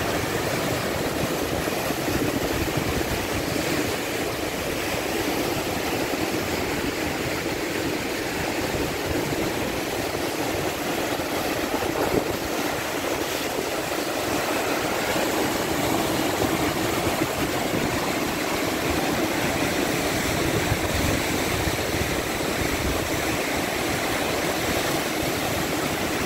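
Waves breaking and washing over a flat rock shoreline, a steady rush of surf, with wind buffeting the microphone as a low, uneven rumble.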